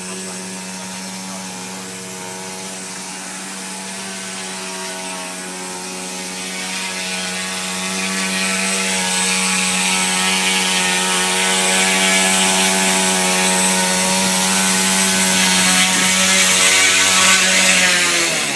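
Radio-controlled helicopter's O.S. 95AX two-stroke glow engine and rotor running steadily in a hover, with a steady buzzing whine. It gets louder with more hiss from about the middle on, and the pitch drops right at the end.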